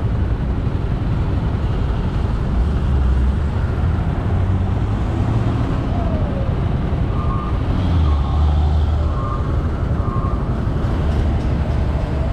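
Vehicle engines rumbling steadily in slow, jammed road traffic, with a few short high beeps between about seven and ten seconds in.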